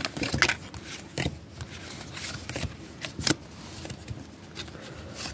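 Pokémon trading cards being slid out of a torn paper packet and handled, with short scattered rustles and clicks of paper and card.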